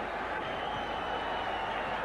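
Steady noise of a large stadium crowd from the stands, with a faint high steady tone running through it from about half a second in.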